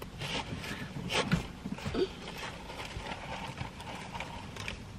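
Mouth sounds of eating: soft chewing, lip smacks and finger-licking, with a few short clicky smacks, the strongest about one and two seconds in.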